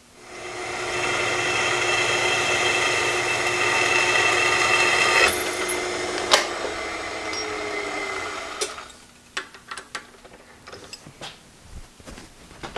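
Drill spindle motor starting up and running steadily while a small twist drill bores a hole in a metal plate clamped in a machine vise. After a click about six seconds in, the motor winds down with a falling tone and stops, followed by light clicks of metal tools being handled.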